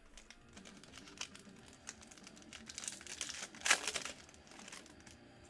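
Trading cards being handled and slid against each other while a pack is sorted, with irregular crinkles and rustles of card stock and foil wrapper, loudest about three and a half seconds in.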